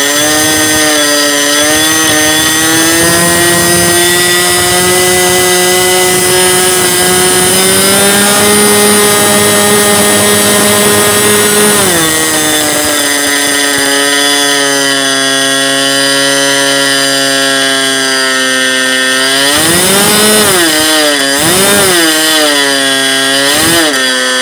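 OS .61 FSR two-stroke glow engine running steadily at high speed. Its pitch creeps up, drops about halfway through, and near the end it sags and picks up again several times in quick succession.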